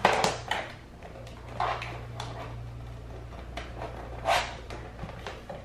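Plastic robot-mop charging base being handled and set down on a wooden floor: a few short knocks and brief scraping rustles, over a steady low hum.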